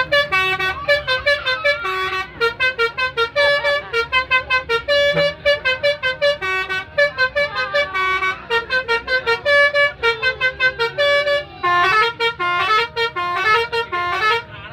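Indonesian 'telolet' musical bus horn playing a fast tune of short stepped notes, over and over, with a brief pause about eleven and a half seconds in.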